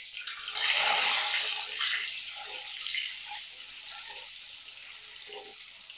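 Boiled eggs sizzling in hot oil in a steel kadai. The sizzle swells loudest about a second in, and a spatula scrapes and knocks against the pan a few times as the eggs are turned.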